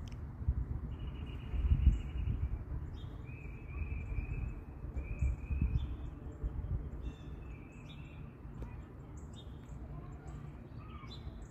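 Birds chirping and trilling in short repeated calls, over a steady low rumble.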